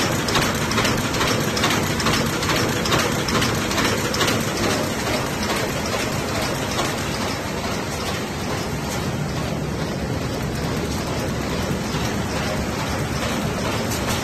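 A400 twisted-handle, square-bottom paper bag making machine running at steady speed: a dense, fast, evenly repeating mechanical clatter that smooths into a steady din about halfway through.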